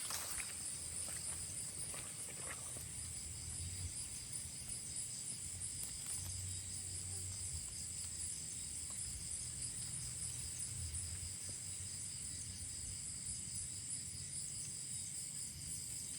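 Steady, high-pitched chorus of insects trilling without a break, with faint low rumbles now and then.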